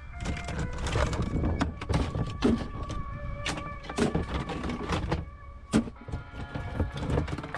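Irregular sharp metal clanks and knocks from scrap transformers being handled and broken apart, over a running mechanical sound.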